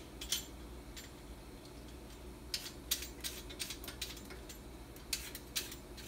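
Hand vegetable peeler scraping down a sweet potato over a stainless steel sink, in short sharp strokes: one just after the start, a quick run of strokes around the middle and a few more near the end.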